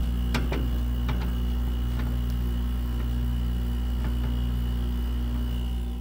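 2021 Frigidaire window heat pump running close up with its coil frosted over: a steady low electrical hum with a faint high whine, and a few light clicks in the first few seconds.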